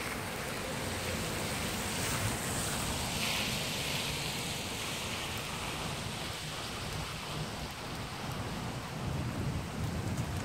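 Steady rain hissing and pattering, with the low rumble of distant thunder underneath; the hiss swells for a few seconds in the middle.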